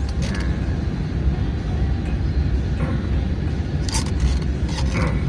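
Car driving: a steady low rumble of engine and road noise, with a few short clicks.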